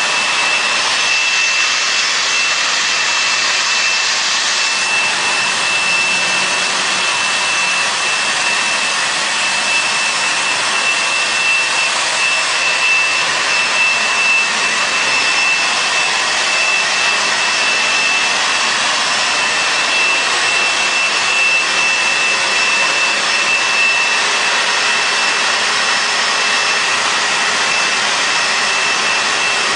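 Carpet-cleaning vacuum motor running steadily: a loud hiss with a steady high whine on top.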